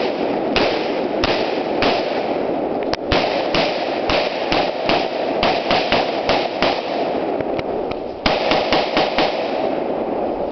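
AR-15 rifle fired in rapid semi-automatic shots, about two dozen in all, each a sharp crack. The shots come roughly every half second at first and get quicker, with a fast string near the end.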